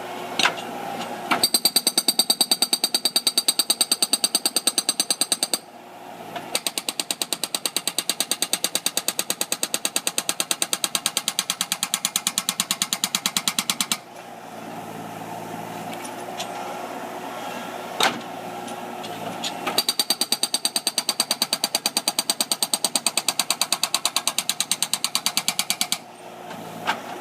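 Hydraulic breaker hammer on a Terex PT-30 compact track loader pounding reinforced concrete in three long runs of rapid, even blows, with the loader's engine running in the pauses between runs.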